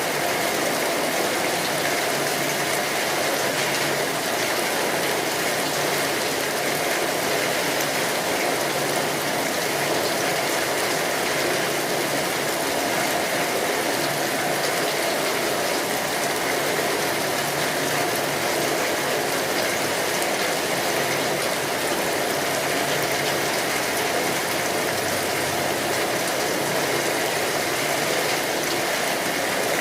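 Steady rain, a dense even patter of drops with no let-up.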